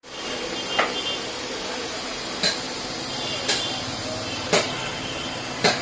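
Five sharp knocks, about a second apart, over a steady background noise.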